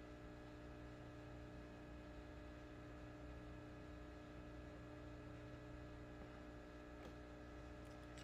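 Near silence with a faint, steady electrical hum, and one light tick near the end.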